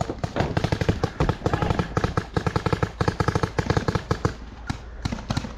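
Paintball markers firing in rapid strings of sharp pops, roughly eight to ten a second, with a brief lull about four seconds in.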